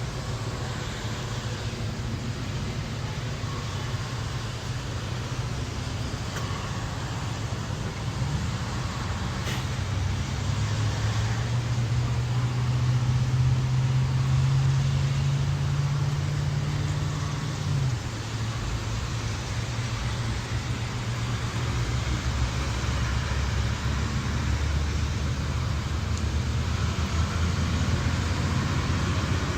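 Motor vehicle engines running in a low, steady drone, with road traffic around them. A louder engine drone comes in about ten seconds in and cuts off about eight seconds later.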